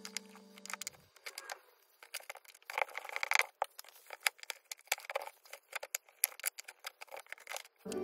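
Metal tweezers clicking and scraping against a fan heater's plastic front grille, with a tissue rustling, as dust is picked out through the slots. The sound is a rapid, irregular run of small ticks, loudest in a burst of scraping about three seconds in.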